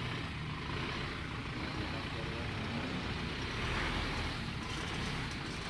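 Toyota Hilux four-wheel drive engine running at low revs as the ute crawls up a rutted dirt track, a steady low drone that swells slightly about four seconds in.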